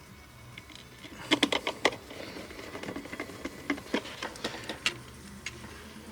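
Irregular small sharp clicks and light clatter from a fireplace-effect lamp, in two clusters: one about a second in and another around four seconds in, over a faint steady low hum.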